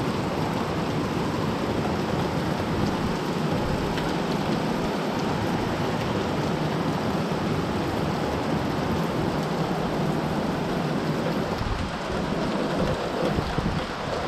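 Heavy rain pouring steadily onto trees and foliage, a dense, even hiss.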